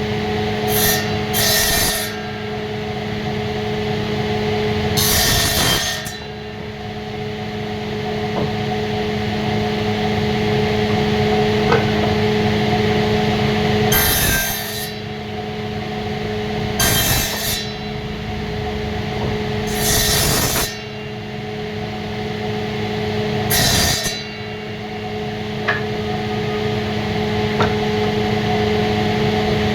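Woodworking: wood being cut or worked with a tool, in short noisy passes every few seconds over a steady machine hum.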